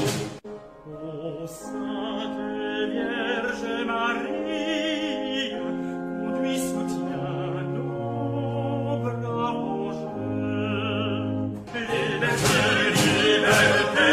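Orchestral national anthem with operatic singing. Just after it starts, the full sound drops suddenly to a quieter passage of held notes with vibrato over a slowly falling bass line. Near the end, the loud full choir and orchestra comes back in with strong beats.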